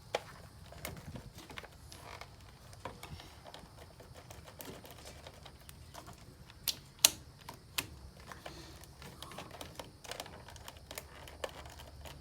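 Irregular small clicks, with a few sharper ones around the middle, from handling the wiring connectors and starter relay of a Tahoe 7000 diesel generator, over a low steady hum.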